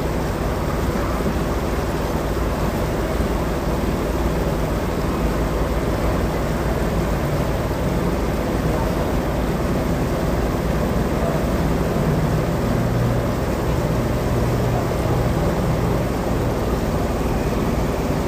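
Boat engine running at a steady cruise while the boat moves along the river: an even, low drone with a faint hum.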